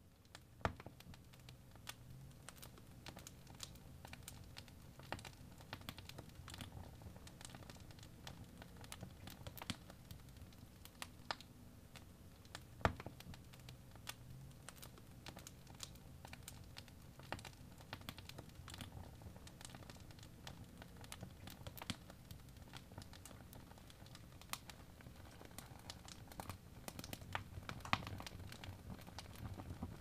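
Birch-log wood fire crackling in a fireplace: irregular sharp ticks and pops, with a few louder snaps, over a low steady rumble of the burning.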